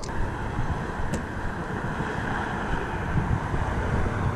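Wind buffeting the microphone: a steady rushing noise with a fluttering low rumble. A single faint click about a second in.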